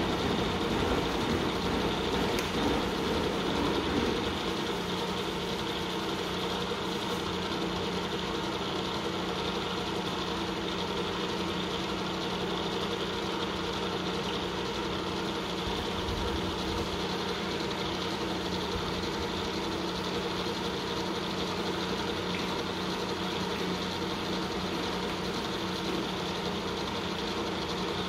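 Sharp 9 x 42-inch vertical knee milling machine running with its spindle turning, a steady machine hum with a few held tones, slightly louder for the first few seconds.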